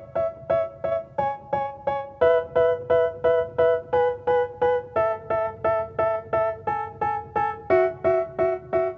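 Background music: a piano-like keyboard playing short repeated chords, about three a second, the chord changing every two to three seconds, with no vocals.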